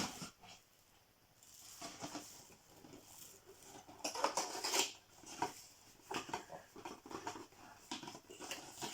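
Cardboard and packaging being handled and opened: scattered rustles, taps and light clicks, busiest about four to five seconds in.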